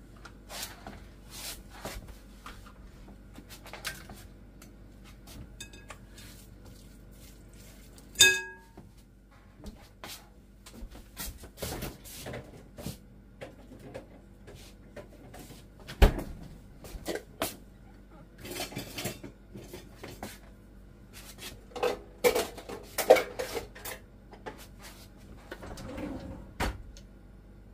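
Off-and-on kitchen clatter: knocks and clinks of dishes, utensils and cupboard doors, with one ringing clink about eight seconds in, a sharp knock about halfway through and a burst of clattering near the end.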